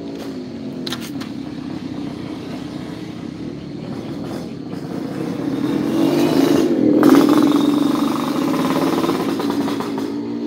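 A small engine running steadily, growing louder to a peak about seven seconds in, then easing off slightly.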